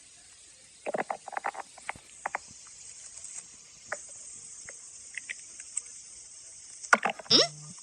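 Stomach growling: scattered short gurgles, a quick cluster about a second in, and a louder squeaky gurgle rising in pitch near the end.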